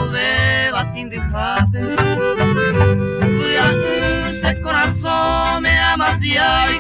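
Instrumental passage of a Paraguayan polka: a melody line with vibrato over a bouncing, regularly pulsing bass and chordal accompaniment.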